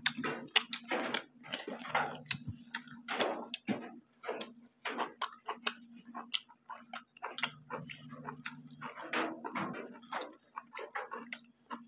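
Close-up eating sounds from two people eating rice and meat by hand: an irregular string of short wet clicks from chewing, lip smacks and fingers working the food, over a faint steady low hum.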